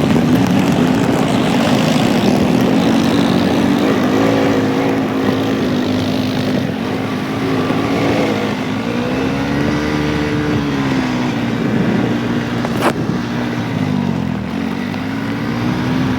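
ATV engine running while riding, its pitch rising and falling with the throttle several times over a steady rush of noise.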